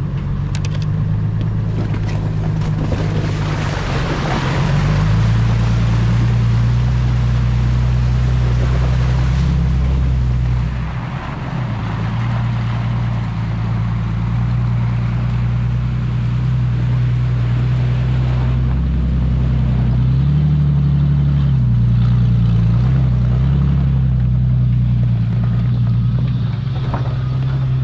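Toyota FJ Cruiser's 4.0-litre V6 running at low revs while crawling a rocky trail, its pitch rising and falling with the throttle. A rush of noise swells about three to six seconds in.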